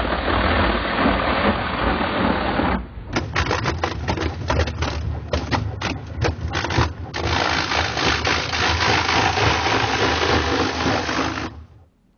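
Homemade electric apple grinder chewing up apples: a poplar drum studded with stainless steel screws, spinning at about 500 RPM, shredding them with a dense grinding crunch. For a few seconds partway through it turns into a run of separate cracks and knocks as pieces are struck, then goes back to steady grinding before cutting off near the end.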